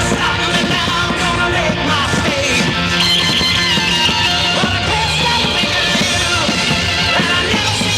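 Loud rock music with singing and a steady beat.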